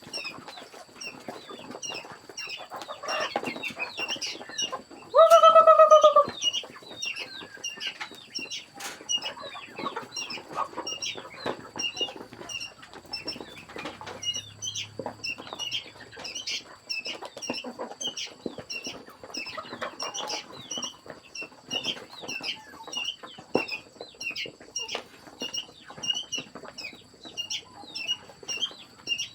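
Chickens: a steady run of short high peeping calls, about two a second, with one loud drawn-out squawk about five seconds in.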